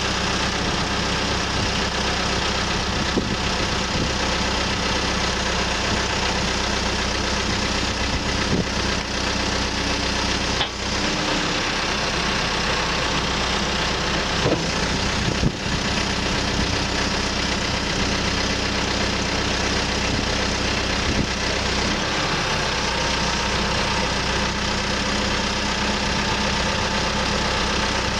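Caterpillar 430E backhoe loader's diesel engine running steadily, with a couple of brief knocks around the middle.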